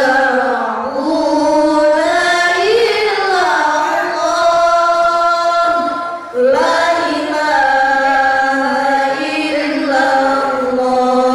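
A group of girls chanting nadhom (Arabic didactic verse) in unison, unaccompanied, in long held and gliding notes. The phrase breaks off briefly about six seconds in and a new phrase begins.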